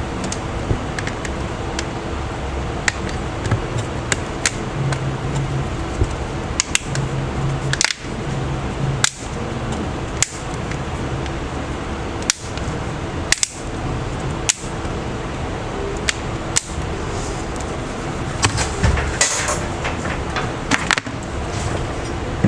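Steady fan-like hum in a small room, with scattered light clicks and taps from handling small parts and tools.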